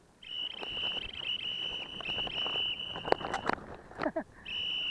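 Mountain bike rolling down a rough, rocky dirt trail: rattle and knocks from the bike and tyres on loose stones, with a steady high-pitched brake squeal. The squeal starts just after the bike sets off, stops for about a second after three and a half seconds, and comes back near the end.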